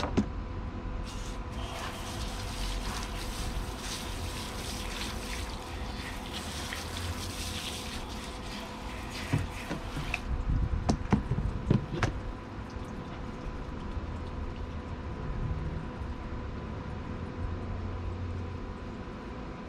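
A garden hose spray nozzle spraying water over raw salmon fillets on a plastic cooler lid. The spray starts about a second in and cuts off about ten seconds in, followed by a few sharp knocks.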